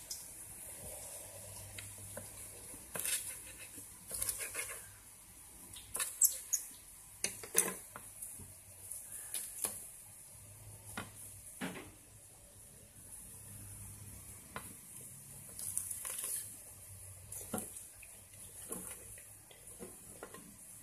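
Scattered clinks and knocks of plates and kitchen utensils, irregular and a few seconds apart, over a faint steady hiss of food frying in oil in a pan.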